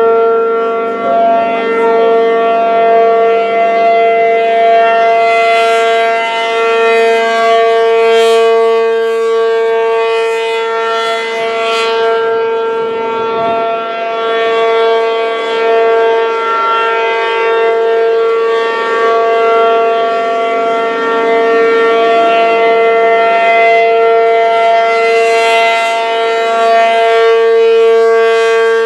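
P-50 outdoor warning siren stuck on, sounding one loud, steady, unbroken tone with its loudness wavering slightly. It is running on continuously through a control fault, assumed to be a welded relay.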